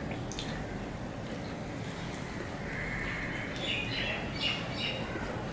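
Eating by hand: fingers working rice and curry, a mouthful taken and chewed, over steady room noise. From about two and a half seconds in there is a high-pitched sound in a few quick notes, the loudest thing here, from a source that cannot be named.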